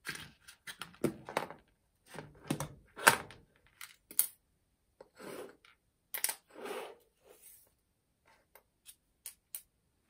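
Plastic housing half of a Makita DF001G cordless drill being worked free of its wiring and electrics by hand: an irregular run of plastic knocks, scrapes and rustles, loudest about three seconds in, with a few sharp clicks near the end.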